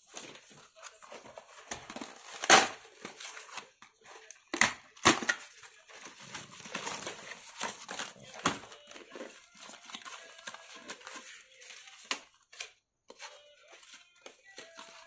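Cardboard toy packaging being pulled apart by hand: rustling and scraping with irregular sharp snaps and tears, the loudest about two and a half seconds in, twice around five seconds, and again at eight and a half seconds.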